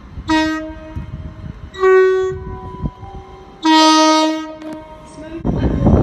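Two-tone horn of a Hitachi Intercity Express Train sounding three short blasts, low, high, then low again, each under a second long. About a second later the loud rush and rumble of the train passing close begins.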